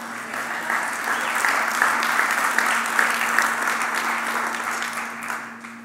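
Congregation applauding, swelling over the first second or two and then tapering off toward the end.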